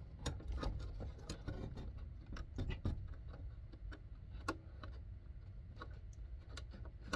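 Scattered light clicks and knocks as the gauge cluster of a 1984 Jeep Grand Wagoneer is worked loose from the dash. It ends in one loud, sharp snap as the cluster comes free.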